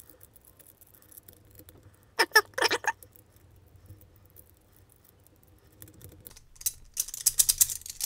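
Cast metal pieces of a Huzzle Cast Padlock puzzle clicking and clinking as they are turned and slid in the fingers, sped up so the clicks come in quick patters. There are two short squeaky chirps about two seconds in, and a dense run of rapid clicks near the end.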